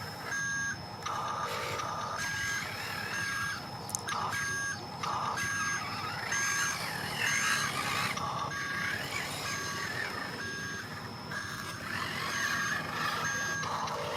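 Electronic reversing beeps from a Huina RC construction model's sound unit, short and evenly spaced at a little more than one a second, over the whirring of its small electric motors and gears.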